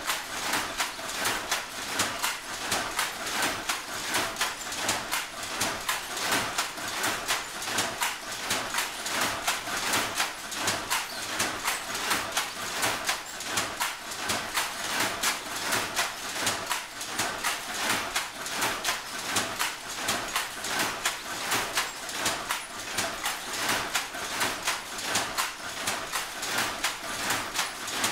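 Power loom weaving wool cloth: a steady, rhythmic clatter of the shuttle being thrown and the reed beating up each pick.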